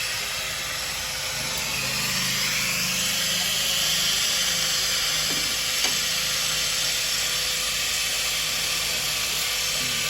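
Toyota Corolla XLi engine running steadily, a low hum coming in about a second and a half in, under a loud steady hiss.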